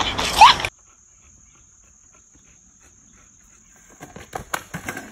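Steady high-pitched insect chorus on a quiet outdoor recording, with a few faint knocks and clatters about four to five seconds in.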